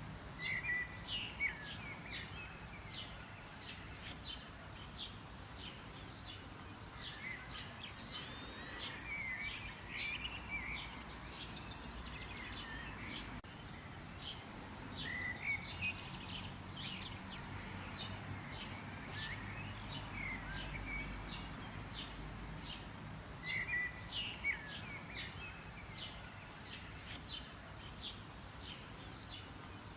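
Small birds chirping in a steady stream of short, high calls, thickening into busier bursts every few seconds, over a low, steady background rumble.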